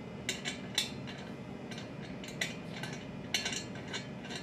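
Light metallic clicks and clinks, about a dozen scattered short taps, from a pot lid and its handle bolt being handled while the handle is being fitted.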